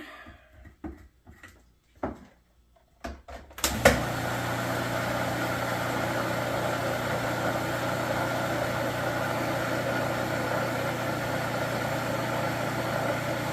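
A few light clicks and knocks, then about four seconds in an electric blender switches on with a click and runs steadily, mixing thick cake batter.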